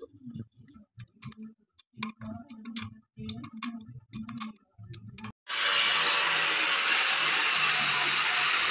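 Light metal clicks and taps as steel parts are handled and fitted onto an air compressor's cast crankcase. About five seconds in, this gives way abruptly to the loud, steady whirr of an angle grinder running, as it dresses a compressor valve plate.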